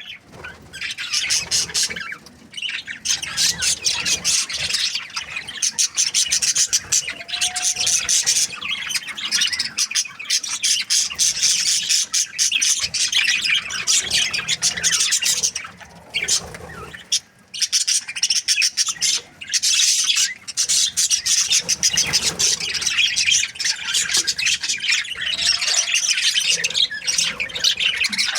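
Budgerigar chirping and chattering in a rapid, near-continuous stream of high squawks and tweets, with a few brief pauses.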